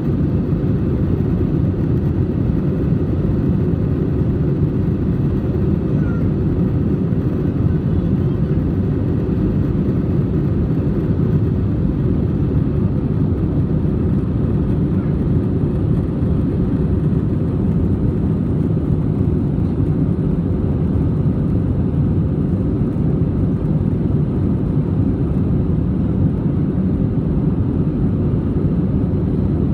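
Cabin noise of an Airbus A320 climbing after takeoff: a steady, deep rumble of engines and airflow heard from inside the cabin, with a faint steady hum in it.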